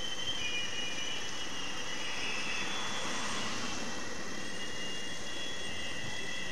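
Steady outdoor street ambience: an even wash of noise with several high, slightly wavering whistle-like tones held throughout.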